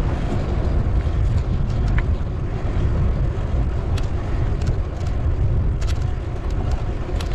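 Steady wind noise on the microphone of a bicycle riding along a highway, with motor traffic going by. A few faint clicks are scattered through it.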